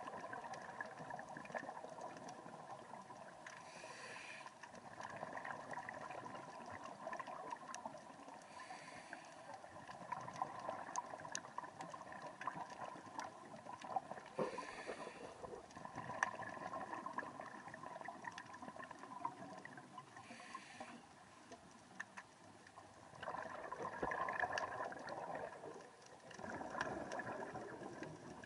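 Underwater sound of a scuba diver's breathing: bursts of exhaled regulator bubbles gurgling out roughly every five seconds, over a steady watery hiss with scattered sharp clicks.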